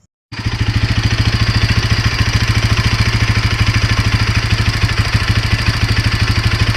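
Bajaj Pulsar NS200 single-cylinder engine idling with a rapid, even pulse, starting abruptly about a third of a second in. This is the engine noise that the owner puts down to a loose timing chain tensioner failing to keep the timing chain tight.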